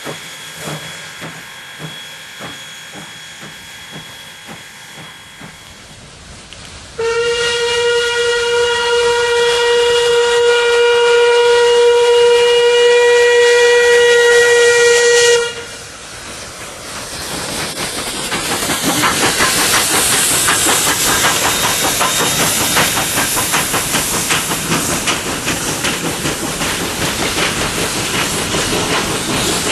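Steam locomotive with quieter, even exhaust beats, then one long steady steam-whistle blast of about eight seconds starting about 7 s in. After the whistle, a loud rush of steam hiss, rapid exhaust beats and wheel clatter on the rails builds and keeps going.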